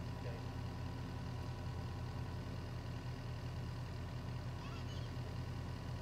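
Yanmar mini excavator's diesel engine idling steadily, with no revving or change in pitch.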